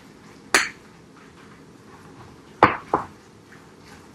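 A utensil clinking against a glass mixing bowl while stirring a thick mixture of shredded chicken and cream of chicken soup: one clink about half a second in, then two close together near the three-second mark.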